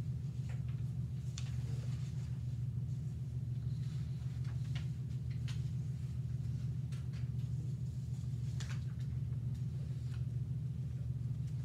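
Steady low hum of a quiet room, with scattered faint light taps and clicks.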